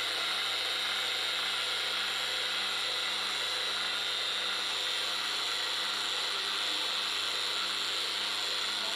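Small electric grain grinder running steadily as it grinds grain fed from a steel pot hopper, its motor giving a steady high whine.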